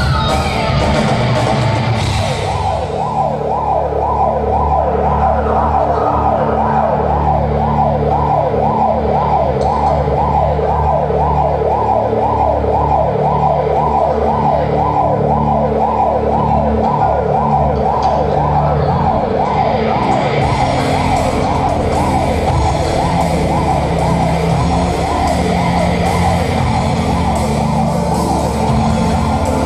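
Rock band playing live: an instrumental passage built on a rapid, evenly repeating siren-like rising figure over sustained low bass notes. The sound fills out at the top about twenty seconds in.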